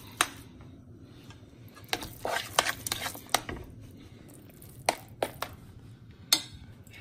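Kitchen utensils clinking and knocking against a pan and dishes: a scattered series of short, sharp clicks, coming in two clusters.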